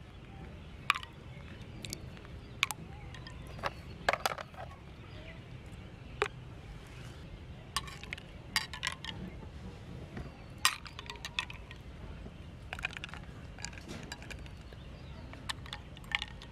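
A metal spoon stirring ice cubes in glasses of milkshake, clinking sharply against the glass and ice at irregular intervals, over a low steady hum.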